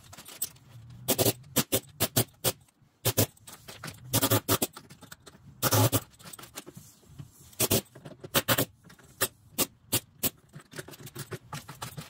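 Pneumatic air hammer chipping loose concrete out of a garage floor, fired in short, irregular bursts with sharp knocks in between.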